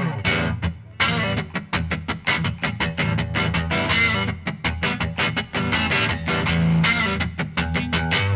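Background rock music led by guitar, with many quickly picked notes.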